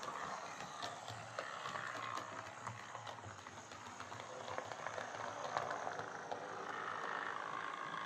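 Heljan OO gauge Class 17 model diesel locomotive running on track: a steady whirr from its motor and gears, with light clicks as the wheels pass over the track joints and points. It runs smoothly, without the pulsating vibration that came from its wobbling flywheels, now that they sit true.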